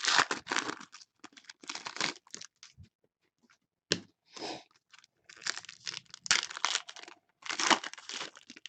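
Foil wrappers of 2015 Donruss soccer card packs being torn open and crinkled by hand, in irregular crackling bursts with short pauses.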